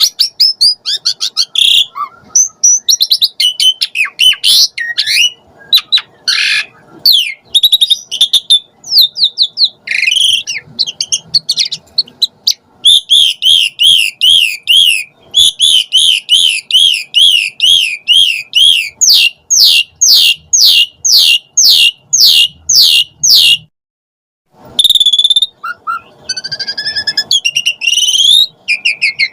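Asian pied starling (jalak suren) singing a varied song of whistles and chattering notes. In the middle it runs into a fast series of repeated rising-and-falling notes, about four a second, then a string of sharp clicking notes, before the song breaks off briefly and resumes with whistles.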